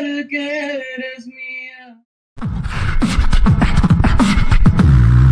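A single voice singing a held, slowly bending melodic phrase that fades out about two seconds in; after a brief silence a loud, bass-heavy outro sting with rapid sharp hits starts.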